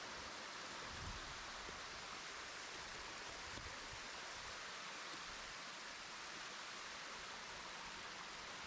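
Steady rush of a small waterfall in a mountain stream, water spilling down a rock face close by.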